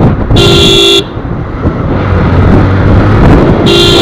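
A vehicle horn blows once, briefly, about half a second in, then twice more in quick succession near the end, all at the same pitch. Between the blasts, a riding motorcycle's engine and wind and road noise carry on.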